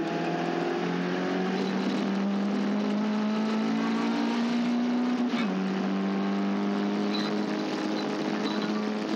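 Caterham Seven race car engine pulling hard, its note slowly rising, then dropping sharply on an upshift about five seconds in before rising again.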